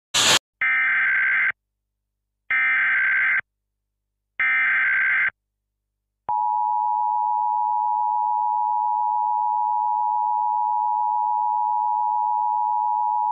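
Emergency Alert System tones. A short burst of noise is followed by three buzzing SAME data-header bursts, each about a second long and about a second apart. About six seconds in, the steady two-tone EAS attention signal begins.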